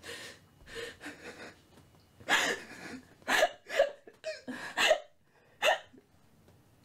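A young woman gagging and retching in short, irregular spasms with gasps between them, about ten in all, the strongest in the middle of the stretch.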